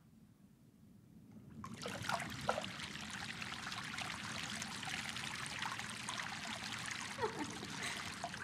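Water trickling and running over a rocky cave floor. It starts suddenly about one and a half seconds in, after near silence, and keeps up a steady trickle.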